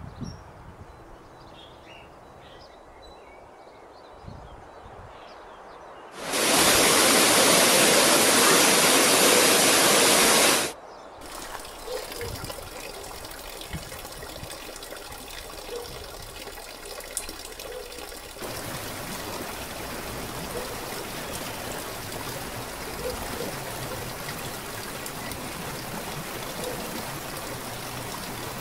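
Running water trickling and splashing, like a stream and a small waterfall. About six seconds in there are a few seconds of a much louder, even rushing of water, then a steadier flow that grows a little fuller from the middle on.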